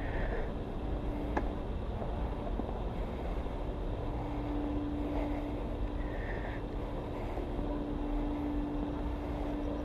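Steady outdoor background rumble, with a droning hum that sets in about four seconds in and holds steady.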